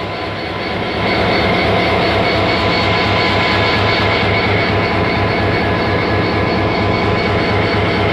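HGMU30 3000-horsepower diesel-electric locomotive's engine idling at close range, a steady low throbbing with a high whine running over it, growing louder about a second in.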